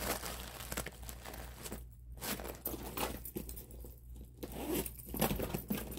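Metal zipper on a Coach Alice tote being pulled along its track, in several rasping strokes broken by short pauses, with handling rustle of the bag.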